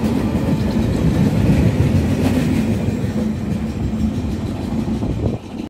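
Freight train's flat wagons rolling past at speed, steel wheels rumbling on the rails; the sound drops away sharply near the end as the last wagon clears.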